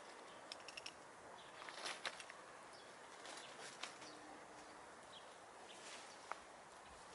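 Faint outdoor ambience with scattered soft rustles and clicks from hens foraging in grass and leaf litter. A quick run of high ticks comes about half a second in, and single sharper clicks come around two seconds and near the end.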